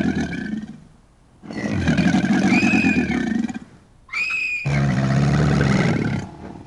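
Dubbed dinosaur roar sound effects: a roar trailing off in the first second, a second long roar around two to three seconds in, a short high shriek just after four seconds, then a lower roar that fades near the end.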